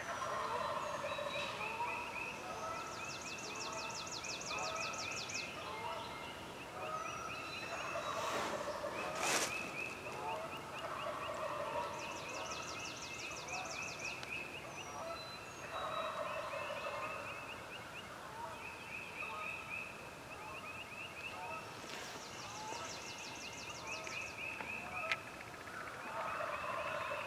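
Wild turkey gobbler gobbling several times, with other birds singing repeated high trills throughout. A single sharp click sounds about nine seconds in.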